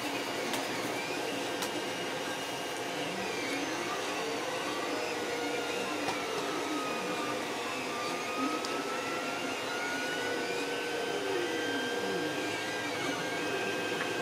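A running 3D printer: a steady fan whir, with stepper-motor tones that glide slowly up and down as the axes move.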